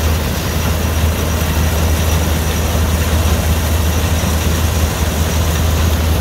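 Antique grain threshing machine running, driven by a flat belt from a tractor: a steady, loud mechanical din over a low engine drone.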